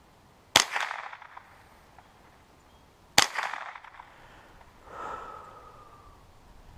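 Two shots from a Ruger 10/22 .22 semi-automatic rifle, about two and a half seconds apart, each a sharp crack that trails off in a short echo.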